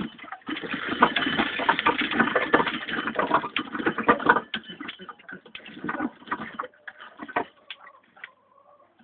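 Domestic cat purring right at the microphone, a dense fluttering buzz that is loudest in the first half and then comes and goes.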